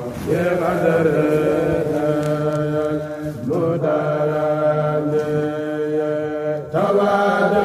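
Unaccompanied devotional chanting of a Mouride khassida (Sufi religious poem), sung in long held phrases, with short breaths between phrases about three and a half and nearly seven seconds in.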